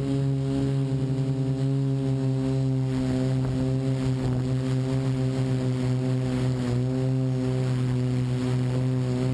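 Multirotor's brushless motors and 12-inch propellers droning at a nearly steady pitch, with small dips and rises as the throttle adjusts. Wind buffets the microphone underneath.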